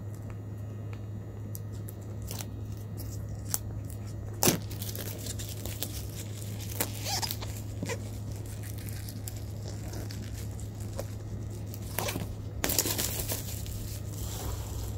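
A cardboard phone box being handled and unwrapped: plastic wrap tearing and crinkling, with scattered clicks and scrapes. The loudest is a sharp click about four and a half seconds in. A steady low hum runs underneath.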